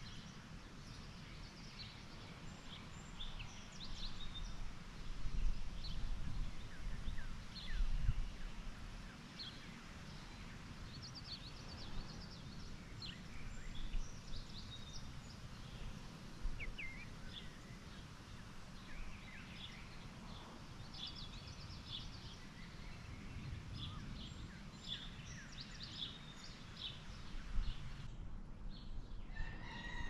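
Songbirds chirping, many short scattered calls, over a steady low outdoor rumble. Near the end a longer, held call with a clear pitch starts.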